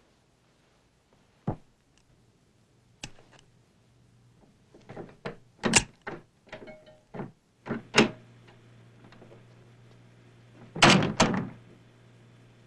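Foley effects performed live to picture: a series of separate knocks, clicks and thuds like footsteps and a door being handled, with the loudest cluster of thuds near the end. A faint low hum comes in partway through.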